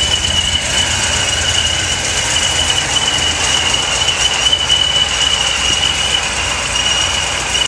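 Supercharged Corvette Z06 LS7 V8 idling steadily, with a low rumble and a constant high-pitched whine over it.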